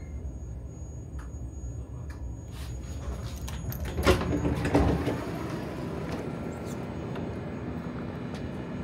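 Commuter train's sliding doors opening: a few clicks, then a short loud rush about four seconds in, over the low rumble of the carriage.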